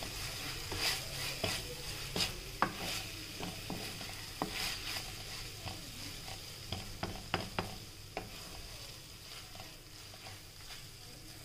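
Wooden spatula stirring and scraping cabbage and capsicum in a nonstick wok, the vegetables sizzling in the oil, with sharp taps of the spatula against the pan several times. The sizzle slowly dies down.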